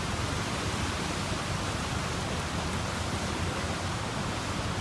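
Steady rush of river water pouring through two open dam spillway gates, the river running high after heavy rain.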